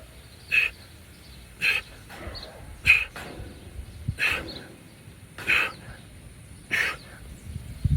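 An animal calling over and over at an even pace: six short calls about a second and a quarter apart.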